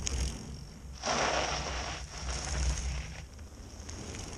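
Mountain bikes riding past close to the camera: knobby tyres crunching and rolling over the gravel trail, loudest in two rushes between about one and three seconds in, over a low steady rumble.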